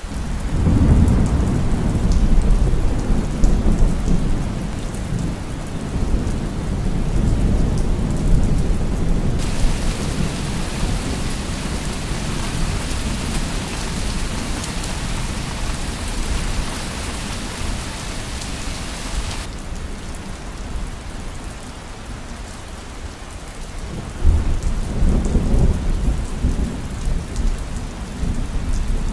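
Storm ambience of steady rain-like hiss under deep rolling rumbles of thunder, heaviest in the first several seconds and again about 24 seconds in. A brighter hiss layer comes in abruptly about 9 seconds in and cuts out sharply about 19 seconds in.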